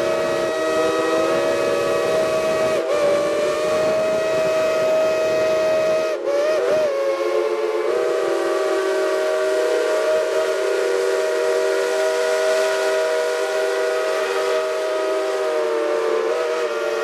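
Whistles of five geared steam locomotives (Shays and a Climax) blowing together, a chord of several steady overlapping tones. A low rumble lies under them for the first six seconds or so, then drops out as the tones briefly waver.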